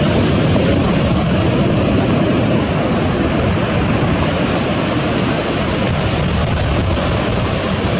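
Steady roar of surf on a beach, with wind rumbling on the microphone.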